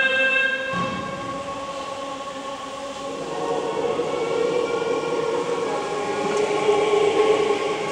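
Choir singing long sustained chords, with the chord changing about a second in and again around three and six seconds.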